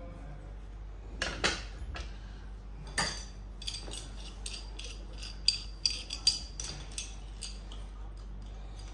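Metal-on-metal clinks and knocks from handling the steel hardware of a distribution transformer's low-voltage bushing and an adjustable wrench. There are two knocks in the first few seconds, then a run of quick, sharp clinks.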